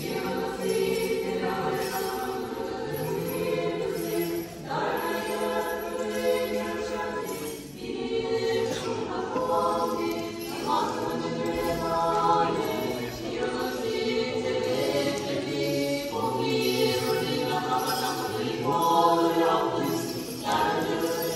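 Orthodox church choir singing liturgical chant unaccompanied, several voices in harmony, in phrases of a few seconds with brief breaks between them.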